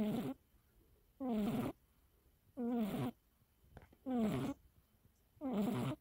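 Domestic cat snoring in its sleep, sped up to double speed: five short snores about one every second and a half, each falling in pitch.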